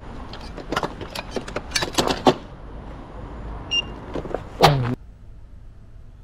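A run of sharp clicks and knocks, then a short electronic beep and a brief, loud sound falling in pitch. The sound then drops suddenly to a low steady hum.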